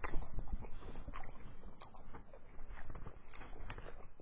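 Pen writing on paper: irregular short scratching strokes, after a sharp click at the start.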